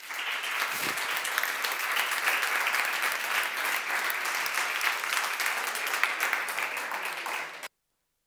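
Audience applauding: many hands clapping steadily, cut off abruptly near the end.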